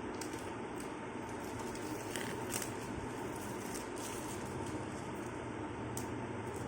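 Packaging being handled: soft crackles and scattered clicks, busiest about two seconds in, over a steady background hiss.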